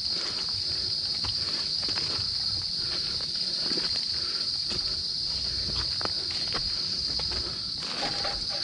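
A steady, high-pitched insect drone, with irregular footsteps and rustling through undergrowth on a forest trail.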